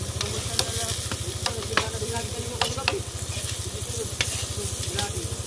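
Chicken pieces sizzling in oil in a wok, stirred with a metal spatula that clicks and scrapes against the pan several times.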